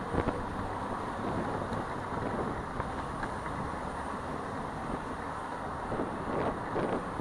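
City street traffic noise, a steady wash of passing vehicles, with a few brief clicks or knocks, the loudest just after the start and a cluster near the end.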